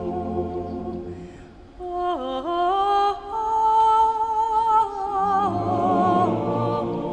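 Background music: a slow vocal piece of long held, wavering notes, with a short break between phrases about one and a half seconds in.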